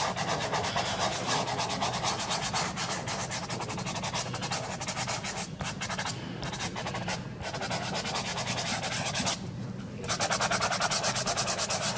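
Fingers and hand rubbing soft pastel into pastel paper, a dense rubbing made of many quick back-and-forth strokes, with a short pause about nine seconds in.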